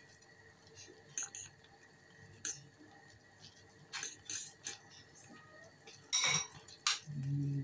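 A metal fork clinking against the inside of a stainless steel saucepan as glass noodles are stirred in water, with scattered light clinks and a louder clatter about six seconds in.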